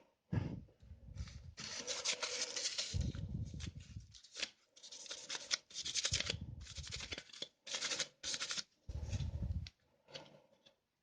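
Short, irregular bursts of scratching and rubbing, mixed with low handling bumps.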